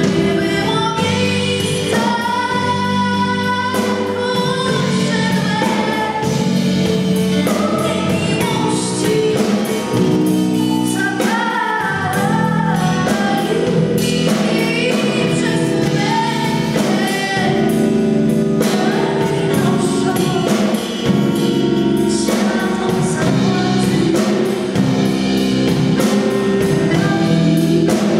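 A woman singing a Polish Christmas carol (kolęda) into a microphone, backed by a live pop band with drums.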